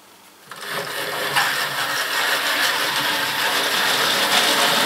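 Hornby OO gauge LMS Patriot Class 5XP model locomotive running on the track, its tender-mounted motor and wheels making a steady mechanical whirr. The sound starts about half a second in and grows louder over the next couple of seconds.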